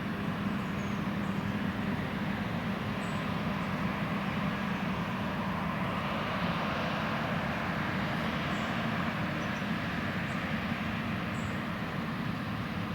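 John Deere X9 1100 combine harvester running steadily while cutting oilseed rape: a constant engine and machinery drone with a steady low hum underneath.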